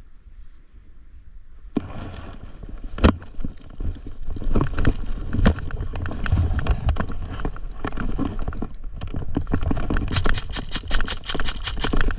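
Close, scuffing and rustling movement noise with scattered knocks, then near the end an airsoft gun firing a rapid burst of evenly spaced shots, about ten a second.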